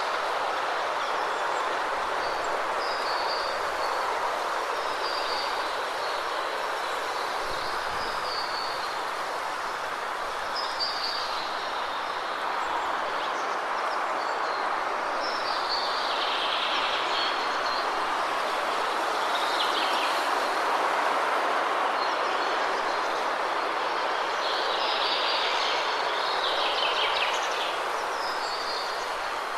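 Waterfall water rushing in a steady, even roar, with birds chirping in short repeated calls over it every second or two.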